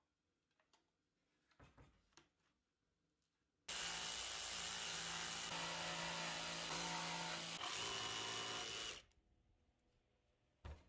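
Cordless jigsaw cutting a notch into a pine 2x6 board. It starts suddenly a little after three seconds in, runs steadily for about five seconds and then stops, with a light knock near the end.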